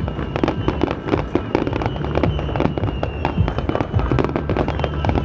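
Fireworks display going off: a dense, fast run of sharp bangs and crackles from bursting shells, with no pause.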